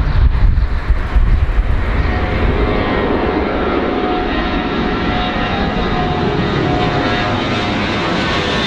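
Airplane engines running loudly: a low rumble at first, then a growing whine of several tones that rises slowly in pitch.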